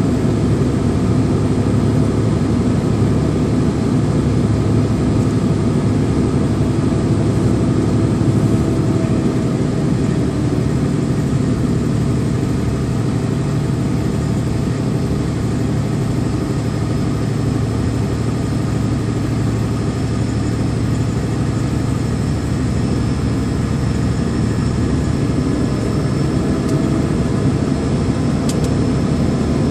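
Vehicle engine running steadily with road and tyre noise while driving up a mountain grade.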